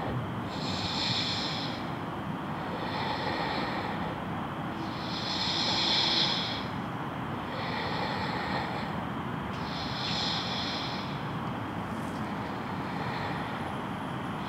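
Slow, deep belly breaths through the nose, about six in turn, alternating louder and softer roughly every two seconds, over a steady low background noise.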